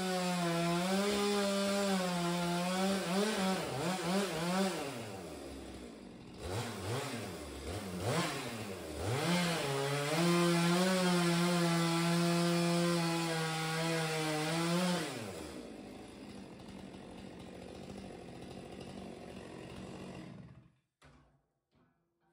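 Chainsaw running at high revs as it plunge-cuts into pine tongue-and-groove wall boards. Its pitch sags and recovers several times under load in the middle. About 15 seconds in the revs drop off, and the saw falls quiet and stops a few seconds later.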